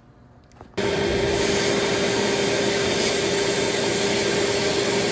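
Abrasive blast cabinet running: a loud, steady hiss of compressed air and blasting media starts abruptly about a second in, with a steady hum under it.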